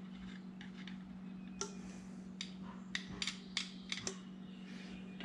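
Sharp metallic clicks and clinks of hand tools and small engine parts being handled on the workbench, about eight in irregular succession over a couple of seconds, over a steady low hum.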